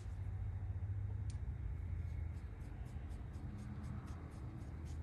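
Quiet handling of small carburetor parts on a workbench, with one light click about a second in. Under it are a steady low hum and faint, evenly spaced ticking.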